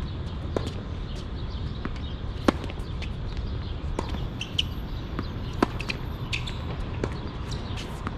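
Tennis ball being hit back and forth in a rally: sharp racket-on-ball pops every one and a half to two seconds, louder strikes alternating with fainter ones from the far side, over a steady low rumble.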